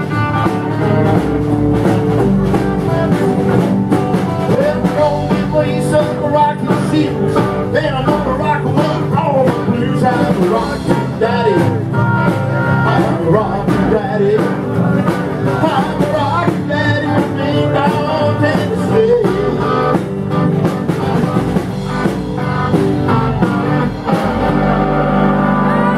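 Rockabilly band playing live: electric and acoustic guitars over a drum kit with a steady beat.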